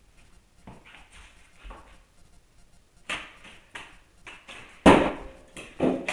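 A quiet stretch, then a series of sharp knocks and clacks in a small bare room, starting about three seconds in; the loudest comes about five seconds in, as someone moves right up to the camera.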